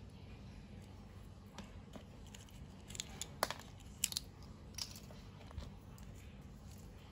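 Light clicks and crinkles of plastic toy packaging being handled and opened, with a brief run of sharper clicks in the middle.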